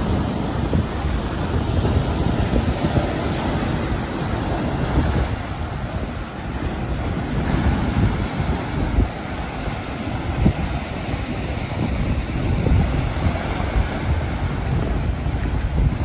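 Sea waves surging up the sand and breaking against rocks, a continuous rushing surf, with wind buffeting the microphone.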